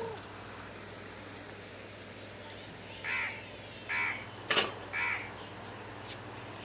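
A crow cawing three times, about one call a second, with a single sharp knock between the second and third caws that is the loudest sound.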